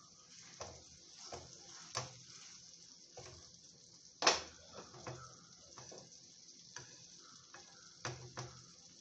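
Spatula stirring diced potato and ridge gourd in a karahi, knocking and scraping against the pan in irregular clicks, the loudest a little over four seconds in, over a faint steady hiss.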